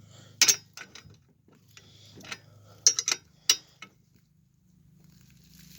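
Sharp, irregular metallic clicks and clinks, about six in all, from tools and chain parts being handled while repairing a pedal car's drive chain.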